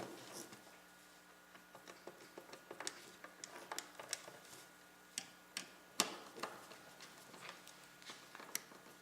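Irregular small clicks and taps of a screwdriver and metal PC parts being handled as screws are tightened in a computer case. The loudest tap comes about six seconds in.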